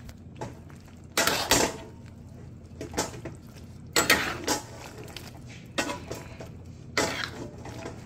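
Metal spatula scraping and clanking against a wok as chicken, tofu and vegetables are stirred in sauce, about five separate strokes, over a steady low hum.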